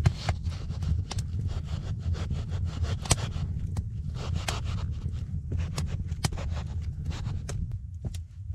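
Wooden log rounds being handled and set into a sand floor: a run of sharp wooden knocks, taps and scrapes, over a steady low rumble.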